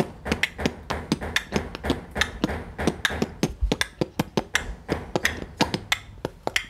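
A young boy beatboxing: a fast, steady run of sharp percussive mouth clicks and kick-like thuds, about five or six a second.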